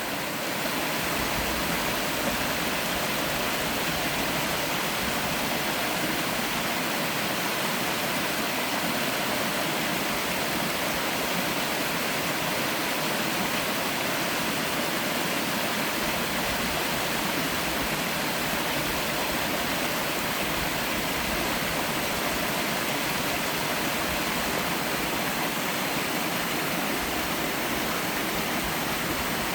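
Two-tier waterfall in a mountain valley stream: falling water making a steady, unbroken rush.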